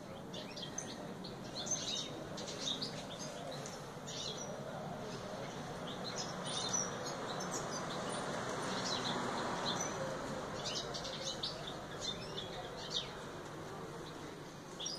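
Red canaries in a cage giving short, high chirps and calls in scattered clusters, over a steady background noise.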